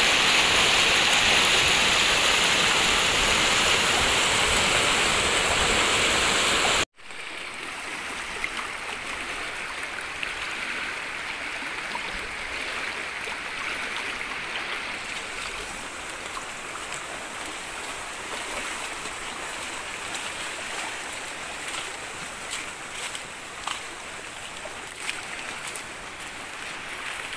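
Flooded river rushing loudly in full spate. About seven seconds in it cuts off suddenly and gives way to a quieter, steady rush of water, with a few light ticks near the end.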